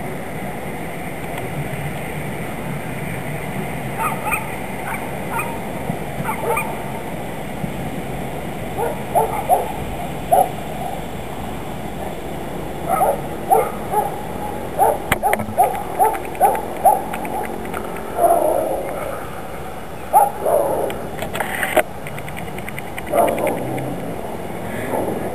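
PKP EN57 electric multiple unit rolling into the platform and braking to a stop: a steady running rumble with many short, repeated squeals from its brakes and wheels, and a few sharp clanks.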